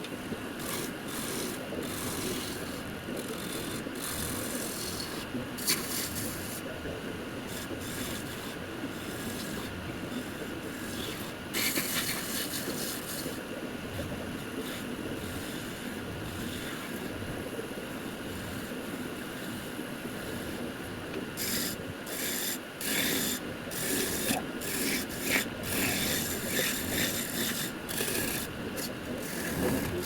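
Wood lathe running while a hand-held turning tool scrapes and cuts the spinning wood. Bursts of sharper cutting noise come a little before halfway and again, repeatedly, through the last third.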